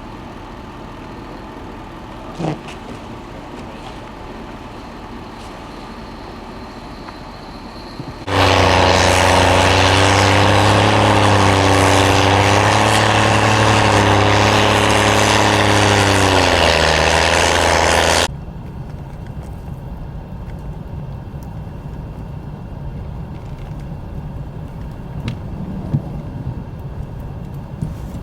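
An engine runs loudly and close for about ten seconds, with a steady low hum that dips slightly in pitch near the end, starting and stopping abruptly. Before and after it there is a quieter, steady outdoor rumble of vehicles and machinery.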